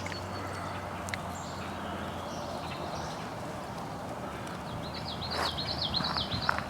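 Steady rush of a flooded creek running high. A songbird sings a quick run of chirping notes near the end.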